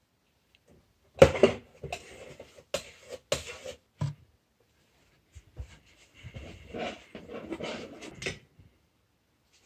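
A few sharp knocks and clicks as things on a work table and the camera are handled, then a stretch of soft scratching as a paintbrush works paint across the canvas.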